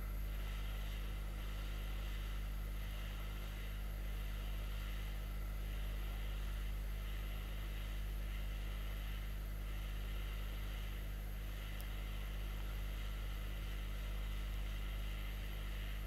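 Steady low electrical hum, with a hiss that swells and fades about once a second: a hot air rework station blowing while it reflows the solder under a phone board connector.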